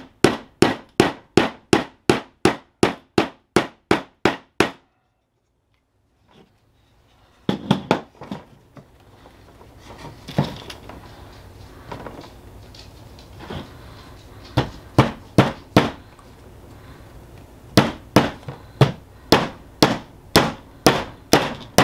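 Ball peen hammer driving small nails into a wooden beehive frame, quick even strikes about three a second. The hammering cuts off suddenly after about four and a half seconds. After a short silence come a few scattered lighter knocks, then fast steady hammering again in the last four seconds.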